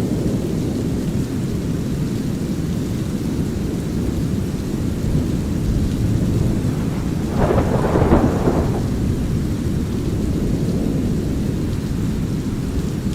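Steady brown-noise rumble under light rain, with thunder; about seven seconds in, a louder thunder clap swells and fades over a second or two.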